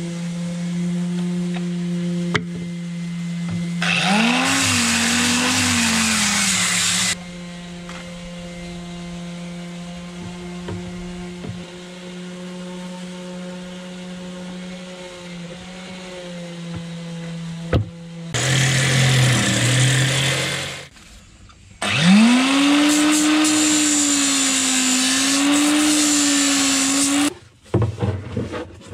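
Corded angle grinder running in three bursts on fiberglassed plywood, each spinning up with a rising whine whose pitch wavers under load. A steady low hum runs beneath until the second burst.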